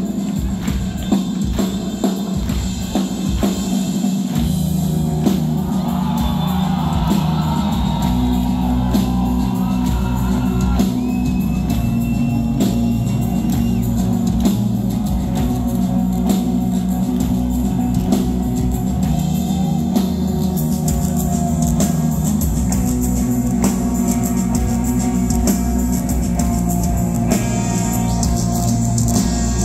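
A live shoegaze band (guitars, bass and drum kit) playing loud, full music through a club PA, heard from within the audience. The heavy low end swells in about four seconds in.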